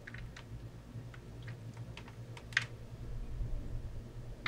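Weaver torque wrench tightening a rifle's action screw to about 35 inch-pounds: a string of light, irregular clicks, one sharper about two and a half seconds in, over a faint steady low hum.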